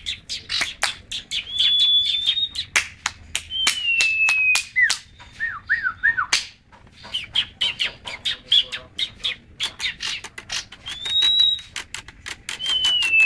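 Caged sirpu songbird singing rapidly: a dense run of sharp chips and clicks mixed with high whistled notes, several held and slowly falling and a few short downward swoops, the kacer (oriental magpie-robin) style of song that it opens with.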